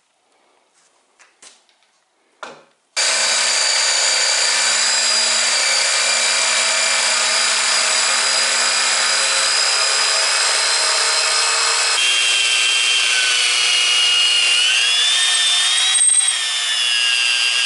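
A few light knocks, then a corded jigsaw starts abruptly about three seconds in and runs steadily, cutting a wheel out of a pine board. About twelve seconds in it gives way to a corded electric drill boring into a wooden beam, its whine wavering up and down in pitch.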